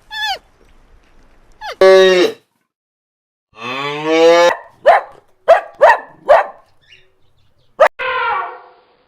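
A series of animal calls: a short call, two longer pitched calls (the second rising and then falling), then five short sharp calls and one more call near the end.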